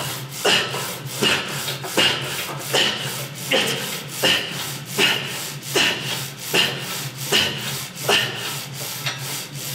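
Gym weight machine worked through quick reps, a rasping rub on each stroke, about four strokes every three seconds, over a steady low hum.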